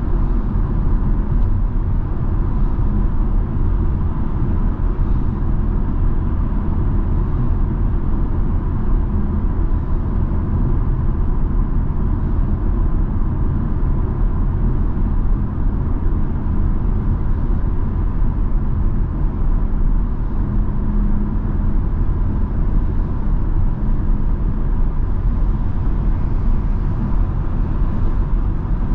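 Steady in-cabin drone of a BMW X3 M40i cruising at freeway speed: a constant low rumble of tyre and road noise over the engine's low hum, with no revving or gear changes.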